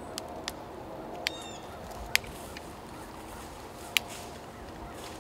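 A plastic water bottle crackling in a hand while an English setter drinks from it: a few sharp clicks and crackles over a faint, steady outdoor background.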